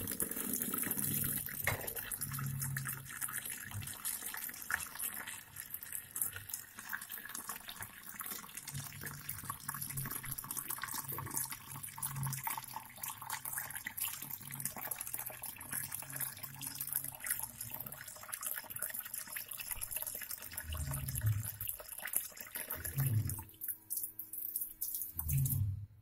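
Water from a tap pouring into a shallow plastic tub: a steady splashing rush that cuts off suddenly near the end. A few dull low bumps come in the last few seconds.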